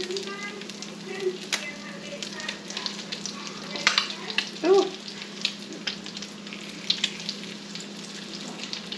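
Crab cakes sizzling as they fry in hot oil in a frying pan, a dense crackle of small pops, turned with a spatula partway through cooking, with one louder click about four seconds in.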